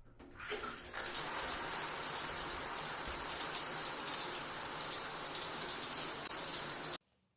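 Water running in a steady stream, as from a household tap or shower. It comes up over the first second, holds evenly, and stops abruptly near the end.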